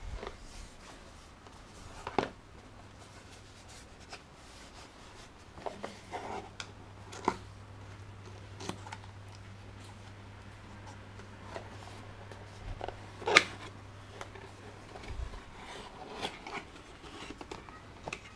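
Box and packaging being handled and opened, with scattered rustles and clicks; the sharpest clicks come about two seconds in and about thirteen seconds in. A steady low hum runs underneath and stops a few seconds before the end.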